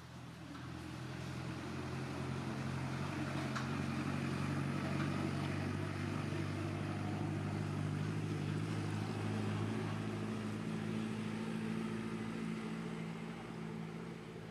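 An engine running steadily with a low hum that swells over the first couple of seconds and fades near the end.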